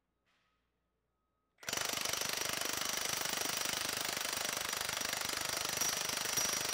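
Milwaukee M18 FUEL 2868 1-inch D-handle cordless impact wrench hammering steadily at full power on a bolt on a torque dyno. It starts about a second and a half in and runs for about five seconds.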